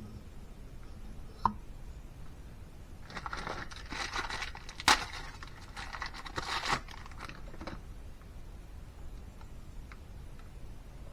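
Handling noise from cylinder head assembly: a click, then a few seconds of crinkling and rustling dotted with sharp clicks, the loudest about halfway through.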